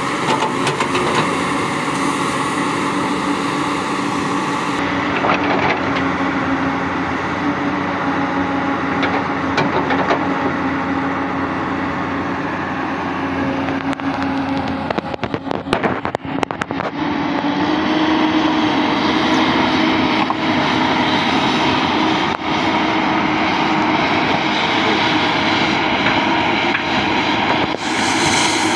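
Komatsu PC200 hydraulic excavator's diesel engine running steadily as the machine works. About halfway through it dips briefly, then settles into a slightly higher, louder note.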